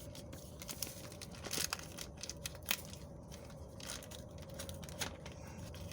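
Crinkling and rustling of something being handled, with scattered light clicks, the sharpest a little under halfway through, over a faint steady hum.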